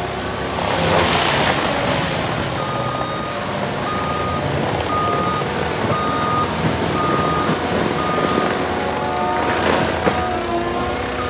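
Land-clearing loader running with its engine revving up and down, its backup alarm beeping about once a second as it reverses. Two louder rushes of noise come about a second in and near the end.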